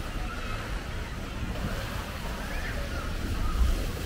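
Outdoor ambience of wind buffeting the microphone with a steady low rumble, with faint distant voices of people around the pool.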